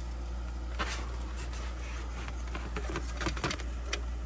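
Scattered light clicks and rustles, as of wires and plastic parts being handled, over a steady low hum.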